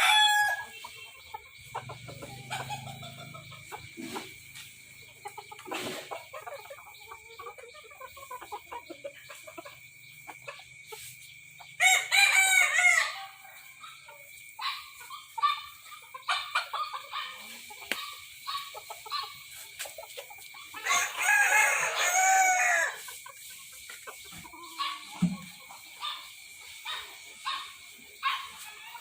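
Young bantam cockerels crowing: two loud crows about twelve and twenty-one seconds in, with scattered short clucks and calls between them and a faint steady high tone underneath.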